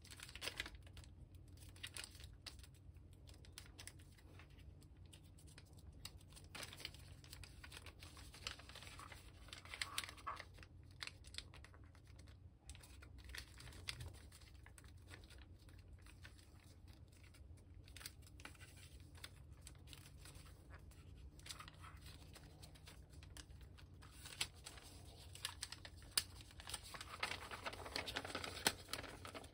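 Sheet of origami paper rustling and crinkling as hands fold it, press it flat and sharpen its creases, with short crackles throughout. The crinkling grows louder and busier near the end as the paper is lifted and reshaped.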